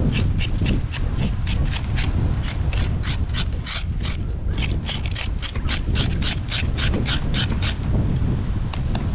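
Charred skin being scraped off a fire-roasted sweet potato: quick, repeated rasping strokes, about four a second, thinning out near the end. The skin is not coming away well by scraping.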